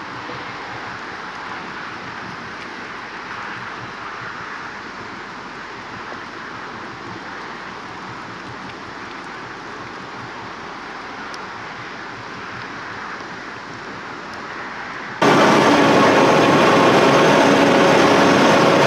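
A steady hiss of wind and water while the 1945 GMC DUKW amphibious truck moves across the water. About 15 seconds in, the sound jumps to the DUKW's engine heard from inside the cab: loud and steady, with a constant whine over it, as it drives afloat.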